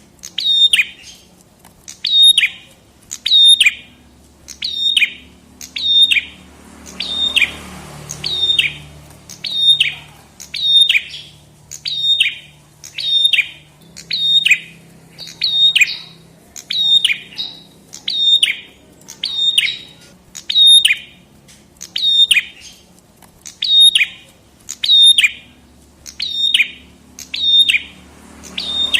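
A prenjak kepala merah (red-headed prinia-type songbird) repeating the same sharp call over and over, a bit more than once a second. Each call is a high note that drops quickly in pitch.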